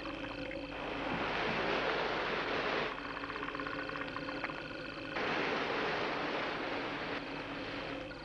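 Film sound design: a crackling, buzzing texture over a steady drone, broken twice by long swells of even rushing noise, each lasting a couple of seconds.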